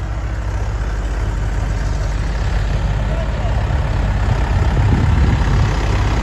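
Heavy diesel engine of earth-moving or farm machinery running steadily with a low, fast-pulsing rumble. It gets a little louder about four to five seconds in.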